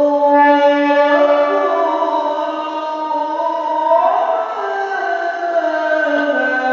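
A male qari reciting the Quran in the melodic tilawah style: long held notes that glide slowly from pitch to pitch, with an ornamented rise about four seconds in.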